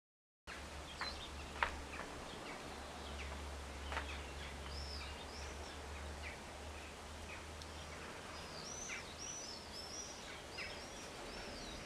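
Birds chirping outdoors, a run of short, high, repeated chirps, busiest in the second half. A steady low rumble and a few sharp clicks early on lie underneath.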